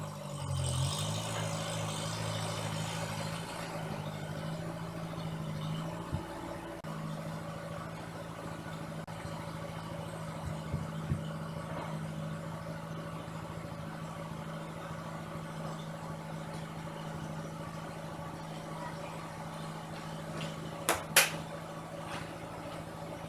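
A vehicle engine idling steadily, with a brief rise just after the start. Two sharp knocks come close together near the end and are the loudest sounds.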